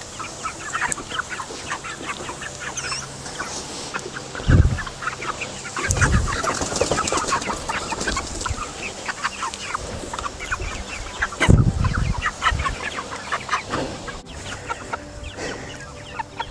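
A flock of young chickens clucking, many short calls overlapping, with a few low thumps about four, six and eleven seconds in.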